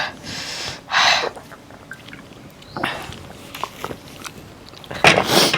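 Several sharp breaths and sniffs through the nose while eating, the loudest near the end, with faint small clicks of chewing or hands on a plate between them.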